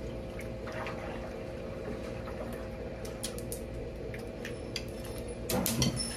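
Scattered small clicks and cracks of crab and lobster shells being handled and broken open while eating, with a louder cluster of cracks near the end, over a steady low hum.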